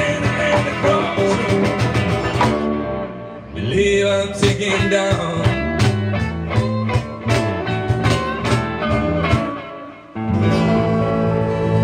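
Live blues band with guitar and harmonica playing, thinning out briefly a little under three seconds in, then coming back in with a long held chord near the end.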